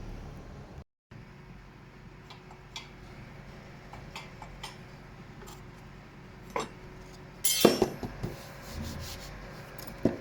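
Scattered light clicks and knocks over a low steady hum, with a louder clatter about seven and a half seconds in.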